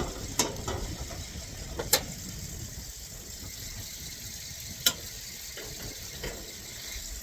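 Sharp clicks and small knocks from hands working on a car's headlight parts, three louder ones spread out (about half a second, two and five seconds in), over a low steady rumble.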